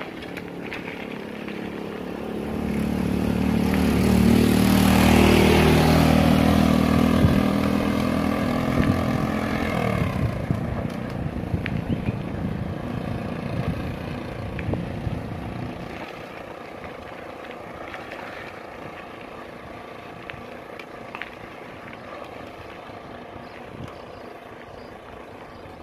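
Small motorcycle engine passing close by: it grows loud a couple of seconds in, is loudest around five seconds, drops in pitch as it goes past at about ten seconds, then fades away.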